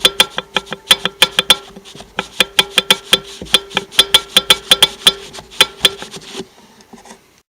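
A 2G DSM's turbocharged engine running with a rapid, irregular sharp ticking over a steady whine, which the owner takes for a turbo failure. Both cut off about six and a half seconds in.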